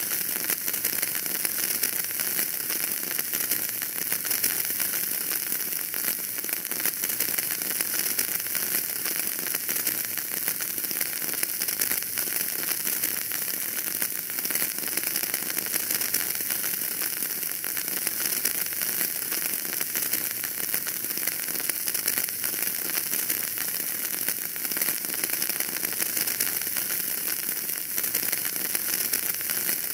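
Wood fire crackling in a fireplace: a steady, dense stream of small pops over a hiss.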